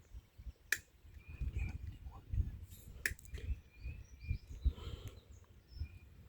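Quiet outdoor farm ambience: uneven low rumbling, two sharp clicks about a second and three seconds in, and faint short bird chirps.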